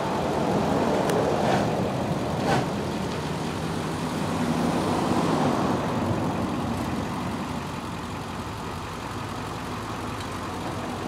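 Vehicle engine running steadily at low revs, a little louder in the first half, with a few light knocks in the first few seconds.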